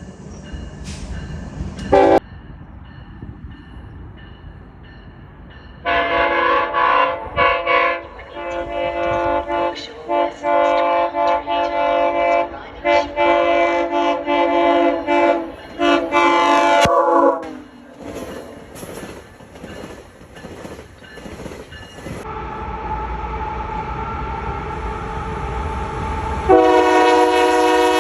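Locomotive air horn sounding a chord in a long run of blasts for about ten seconds, after a brief toot near the start, with the low rumble of a train. A fainter horn tone follows, then a loud blast again near the end.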